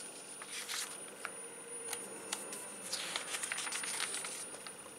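Glossy catalogue pages being handled and turned, rustling in two stretches about a second in and around three seconds in, with small clicks of paper. A thin, steady high-pitched whine runs throughout, a recording glitch.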